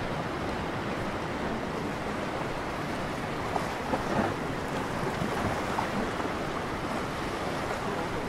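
Small sea waves washing and breaking over a rocky, pebbly shoreline in a steady wash of surf noise, with wind blowing on the microphone. The sound swells briefly about four seconds in.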